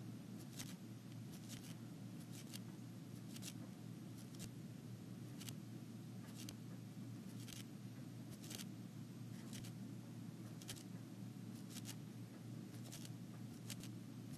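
Stylus tapping and sliding on a tablet screen while handwriting: faint, irregular light ticks, often in close pairs, about once or twice a second, over a low steady hum of room tone.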